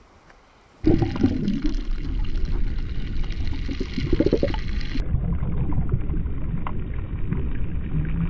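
Muffled rushing and gurgling of sea water around an action camera held by a swimmer underwater. It starts suddenly about a second in and keeps on dense and low.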